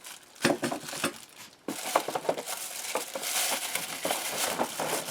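Packaging crinkling and rustling as parts of a tool kit are unpacked by hand: a few sharp crackles at first, then a denser, steadier rustle from about two seconds in.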